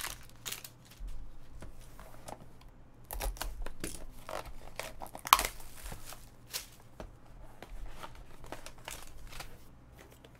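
Shrink wrap being torn and pulled off a small trading card box and the foil pack slid out: irregular crinkling and rustling of plastic and cardboard, with one sharp, loud crackle about five seconds in.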